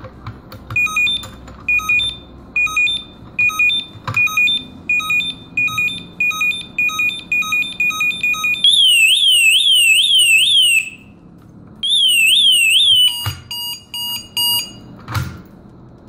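Built-in alarm of a DESi mortise lock going off: short high beeps repeating about once a second, then a loud siren in a fast, repeatedly falling warble that breaks off for a moment and resumes, then a quick run of short beeps. A few metallic clunks from the lock mechanism are heard, the loudest near the end as its hook bolts are drawn back.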